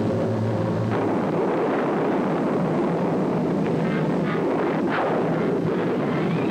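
Thunderstorm sound effect: a dense, steady rumble of thunder, with a sharp crack about a second in and another near five seconds.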